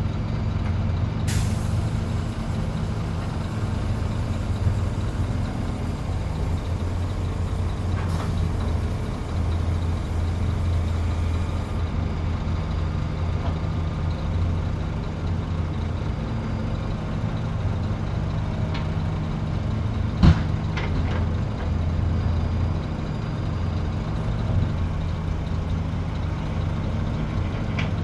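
Heavy diesel engines of large excavators and dump trucks running steadily with a low drone. A faint high hiss starts about a second in and stops suddenly about twelve seconds in, and one sharp knock stands out about twenty seconds in, among a few lighter clicks.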